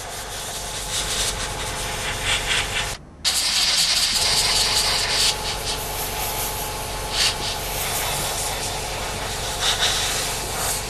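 Airbrush spraying dark green acrylic camouflage paint: a steady hiss of air and paint over a faint steady hum. It cuts out for a moment about three seconds in, then comes back louder for a couple of seconds.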